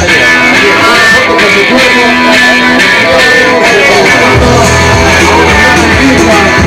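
Loud amplified dance music with guitar; the bass drops out for the first few seconds and comes back in about four seconds in.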